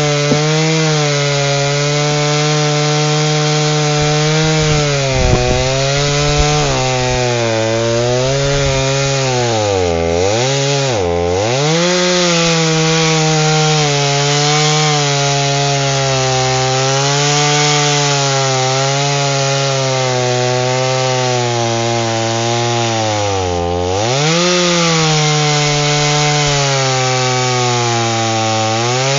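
Two-stroke chainsaw cutting wood, its engine running steadily under load. Its pitch sags and recovers twice in quick succession about ten seconds in, and once more about fourteen seconds later, as the saw bogs briefly in the cut.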